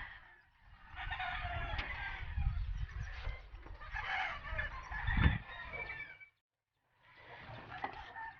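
A rooster crowing and chickens clucking, over a low rumble. The sound drops out briefly about six and a half seconds in.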